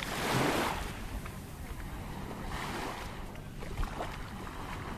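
Wind on the microphone and sea waves at the shore, with a louder noisy surge at the very start and another about two and a half seconds in.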